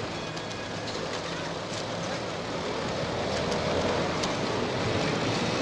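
City street traffic: a steady hum of car engines over an even hiss, growing slowly louder toward the end.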